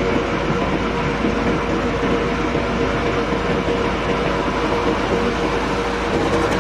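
Diesel engine of a loaded off-road dump truck running as the truck drives close past. It is a steady heavy rumble with a constant tone through it.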